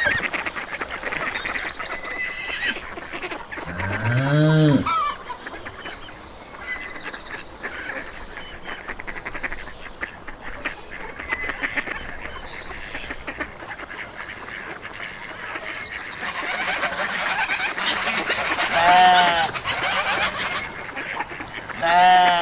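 Farmyard fowl calling: geese honking several times, with a loud rising call about four seconds in and more honks near the end, over a constant chatter of other birds.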